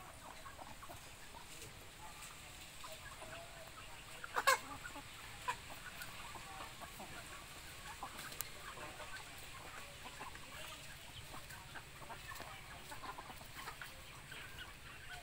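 A flock of chickens clucking as they feed, with scattered short calls throughout and one brief, sharp, louder sound about four and a half seconds in.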